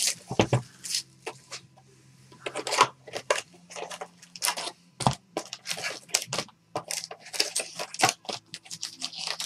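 Cellophane shrink-wrap crinkling and tearing as it is stripped off a sealed trading-card box, then the cardboard box lid opening and foil card packs being pulled out, heard as a string of short, uneven rustles and scrapes. There is a sharper knock about halfway through.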